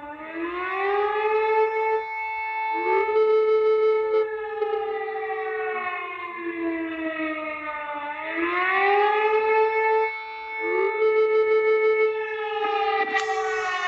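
Romanian civil defence alarm siren wailing. Its pitch rises over about a second, holds, then slowly falls. The cycle starts over about eight seconds later, twice in all.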